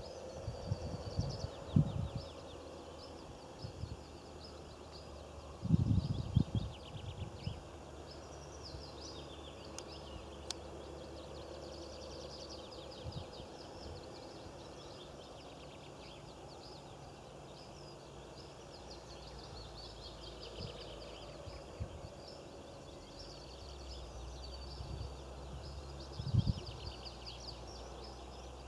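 Small birds chirping and twittering over a steady outdoor hiss, with a few dull low bumps on the microphone, about a second in, around six seconds and near the end.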